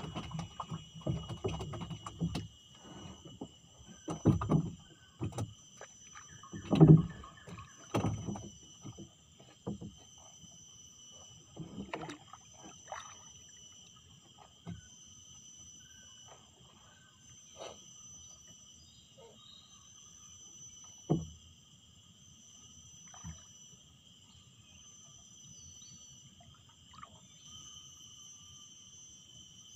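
Steady high-pitched insect chorus from the mangroves, several pitches held throughout, with irregular knocks and thumps from handling in the wooden boat, thickest in the first ten seconds and a few single knocks later.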